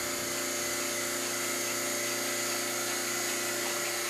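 A milking machine's vacuum pump running steadily with a constant hum. Over it comes a hiss of hot sanitizing water and air being sucked through the teat cups and milk hose as the milking equipment is sanitized.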